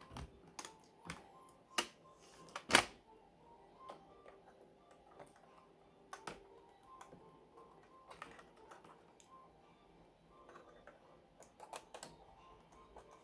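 Scattered clicks and taps from tools and the plastic and metal parts of a Dell Inspiron M5110 laptop being handled during disassembly, with one sharper knock about three seconds in. Faint background music.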